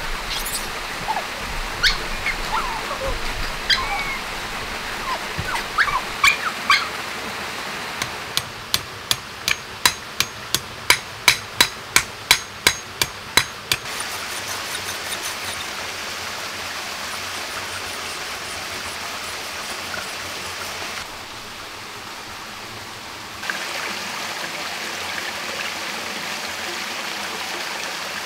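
Running stream water throughout. In the first few seconds there are short chirping animal calls. About eight seconds in comes a run of sharp knocks, about two a second, lasting some six seconds.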